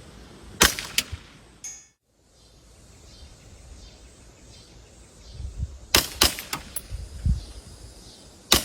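Airsoft guns firing in sharp snaps: two shots about half a second apart near the start with a short rattle after them, a quick run of four shots about 6 s in, and one more near the end.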